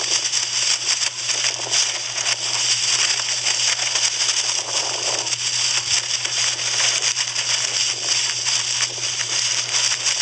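Wind rushing over a phone's microphone carried aloft on a box kite, with the kite's garbage-bag plastic skin crackling and fluttering continuously. A steady low hum runs underneath.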